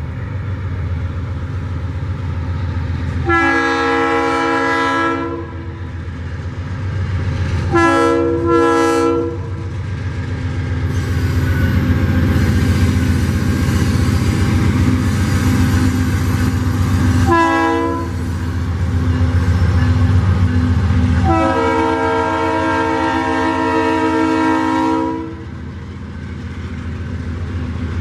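GE Dash 9-BB40W diesel locomotive hauling an empty iron-ore train past, its multi-tone air horn sounding five times: a long blast, two short ones, a short one about halfway through and a final long blast of about four seconds. Under the horn the engine and the wagons rolling on the rails keep up a steady low rumble.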